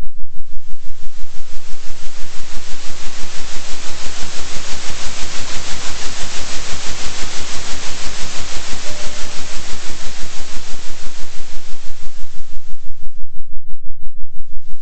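Synthetic hiss (pink/white noise) with a steady low hum underneath, pulsing in loudness about three times a second: a 3 Hz oscillation. Its brightness swells in over the first second or so and dulls again near the end.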